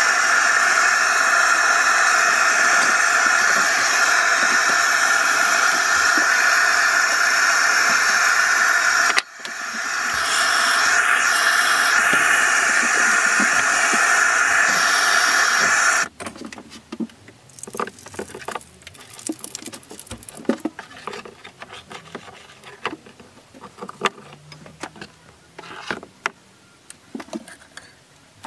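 Steady loud hiss of a gas blowtorch firing into a firebrick forge, dipping briefly about nine seconds in and cutting off suddenly about halfway through. Afterwards only a few light clinks and knocks.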